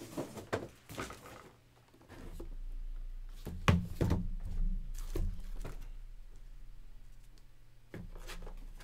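Handling noises as the next box of card packs is fetched and handled: scattered light knocks and clicks, a sharp knock about three and a half seconds in followed by a few more, and another click near the end, over a low steady hum.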